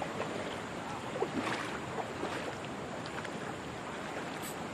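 Steady rush of a shallow river flowing over rocks, with a few faint ticks.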